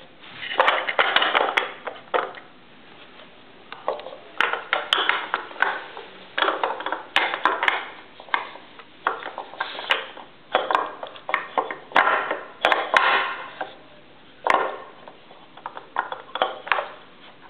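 Round wooden dowels rattling and knocking in a wooden puzzle box as a dog noses them and lifts them with its teeth to get at treats underneath. The clattering comes in repeated bursts with sharp clicks, with short lulls between.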